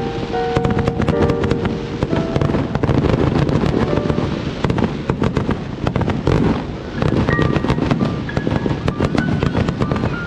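Fireworks going off in rapid succession, a dense run of cracks and bangs, with a melody playing alongside.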